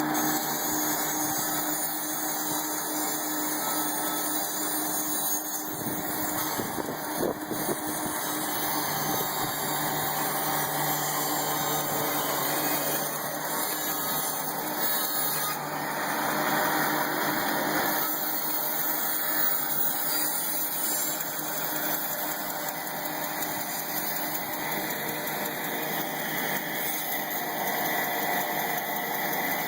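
Sawmill machinery running steadily, a continuous mechanical noise with a faint low hum.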